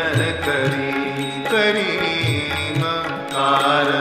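Indian devotional song music: a pitched melody with sliding notes over a repeating low drum beat.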